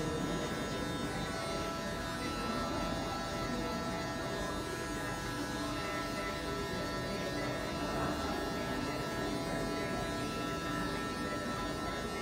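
Electric hair clippers buzzing steadily as they cut short hair on the side and back of a head.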